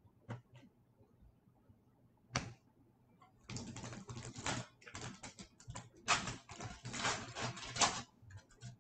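Crinkling and crackling of an O-Pee-Chee Platinum hockey card pack's foil wrapper being torn open by hand, in several spurts. A few light taps and a sharp rustle come first.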